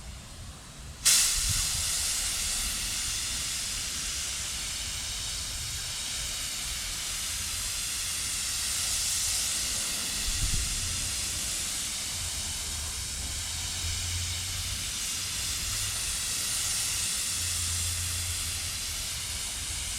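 Paint spray gun spraying a coat onto a truck fender: a steady hiss of air and atomised paint that starts suddenly about a second in, as the trigger is pulled, and keeps going.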